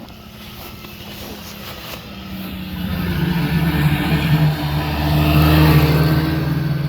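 Snowmobile engine passing close by: it grows louder over several seconds, is loudest about five to six seconds in, then starts to fade.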